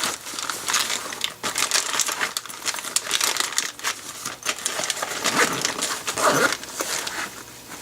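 Crinkling and rustling of packaging being handled by hand, a dense irregular crackle that dies down near the end.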